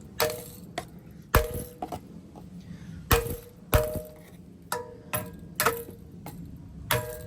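A series of sharp knocks, roughly two a second and somewhat uneven, each ringing briefly on the same couple of notes, like a hollow resonant object being struck.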